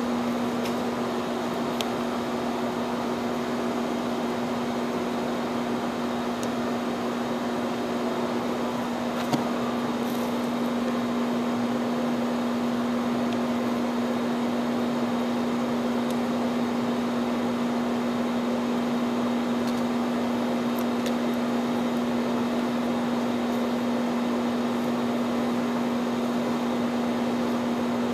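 Steady hum of running machinery with one strong, constant low tone, and a single sharp click about nine seconds in.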